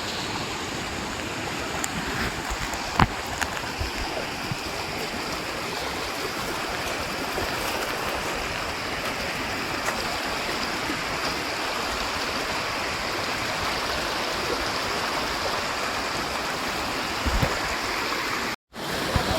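Steady rushing of a small hillside stream, with a few light clicks and knocks over it; the sound cuts out for a moment near the end.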